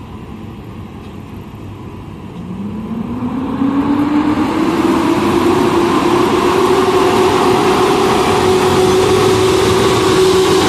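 Polish EP08 and EP07 electric locomotives pulling a passenger train away from the platform: a hum that rises in pitch as they gather speed for a couple of seconds and then holds steady. It grows louder as the locomotives come past close by.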